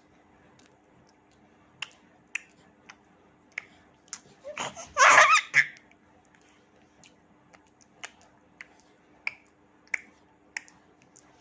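A baby's short burst of laughing, babbling voice about halfway through, set among scattered faint clicks.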